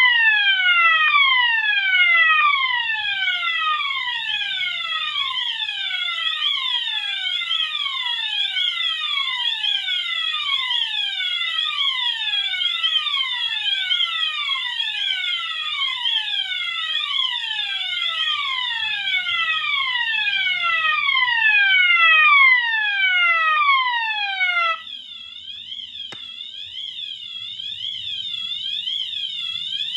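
Two multitone fire alarms sound together: a Wheelock MT on its siren tone and a second alarm on swept frequency. One gives a falling sweep about once a second, over a fast warbling sweep. About 25 seconds in, the falling sweep cuts off suddenly and the sound drops, leaving the warble; a loose alligator clip on the alarm wiring is the cause.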